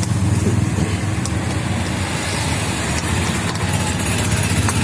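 Steady low rumble of vehicle engines in street traffic, with a few faint clicks of a steel ladle against a steel pot.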